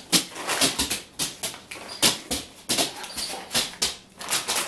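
A dog whimpering eagerly for a treat, among quick, repeated crinkles of a plastic dog-treat bag.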